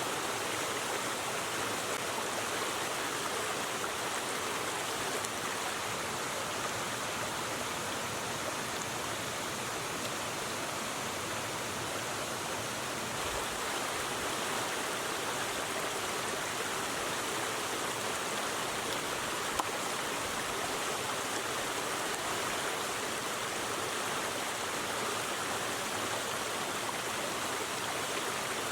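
River water rushing steadily, with one brief click about two-thirds of the way through.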